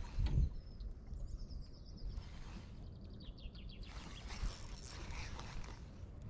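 A small bird singing short high chirps and a quick trill over a low steady background rumble, with a dull knock just after the start.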